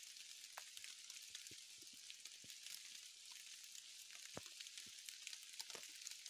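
Light rain falling on forest leaf litter and a parasol mushroom's water-filled cap: a faint, even patter with scattered individual drops, a few of them louder.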